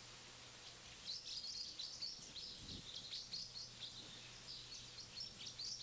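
Faint birdsong: a quick, busy run of short high chirps that starts about a second in and keeps going.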